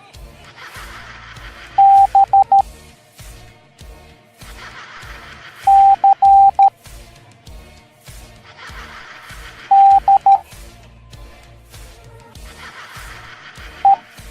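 Morse code beeps at one steady pitch, sounding the letters B, C, D and E in turn, one letter about every four seconds (dah-di-di-dit, dah-di-dah-dit, dah-di-dit, dit). Quieter background music with a steady beat plays underneath.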